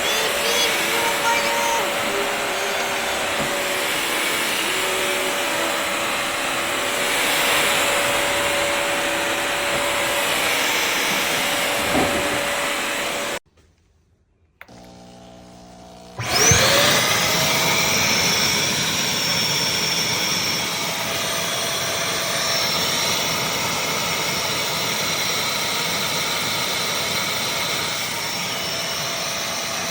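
Bissell CrossWave HydroSteam wet-dry floor cleaner running with a steady motor and brush whir. About halfway it cuts out for a few seconds, with only a faint low hum, then starts again with a rising whine as the motor spins up.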